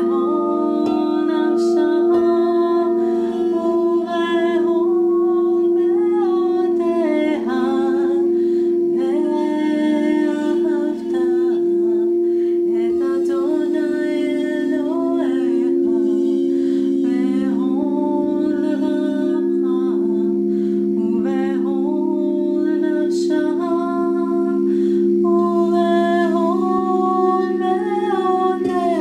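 Crystal singing bowls rubbed around the rim with a mallet, holding several steady overlapping tones. A woman's voice sings over them in long notes that slide up and down.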